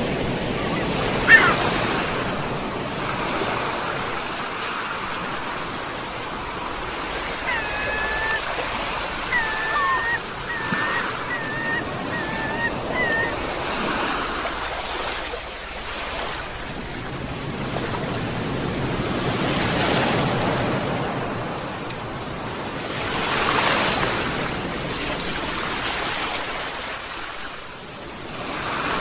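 Sea waves breaking and washing in, swelling and ebbing in slow surges. Seagulls give a run of short, high calls between about 7 and 13 seconds in, with a single call about a second in.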